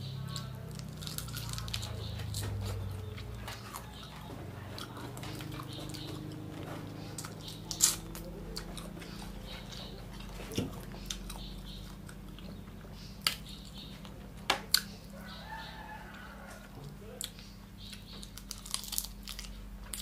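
Chewing and crunching of cooked rhino beetles, with a few sharp cracks of the hard shells, the loudest about eight seconds in and a quick cluster around thirteen to fifteen seconds. A steady low hum runs underneath.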